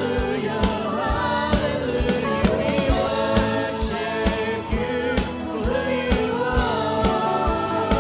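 Worship song: singing voices over instrumental accompaniment with a steady drum beat.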